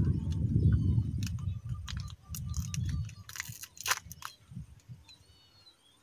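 A plastic snack wrapper crinkling as it is handled, with a few sharp crackles about three and a half seconds in. A low rumble fills the first half.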